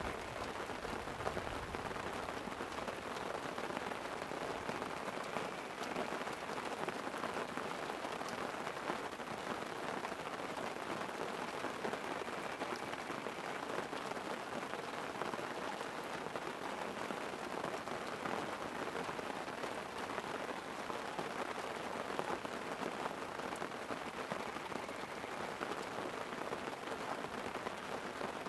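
Light rain falling on a tent: a steady hiss dotted with many small ticks of drops.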